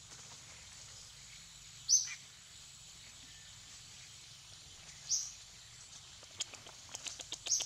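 Two short, sharp high-pitched animal calls about three seconds apart over a steady background hiss, then a quick run of clicks and small squeaks near the end.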